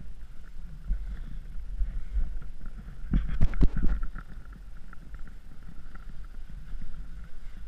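Snowboard sliding over groomed corduroy snow, its base and edges scraping, over a steady low rumble of wind on the camera's microphone. A louder burst of scraping comes about three seconds in.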